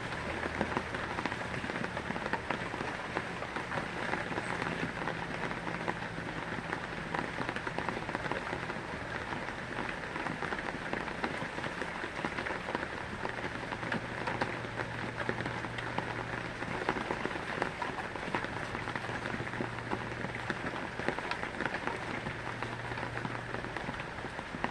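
Heavy rain falling steadily: a dense, even patter of drops with no let-up, over a faint low hum.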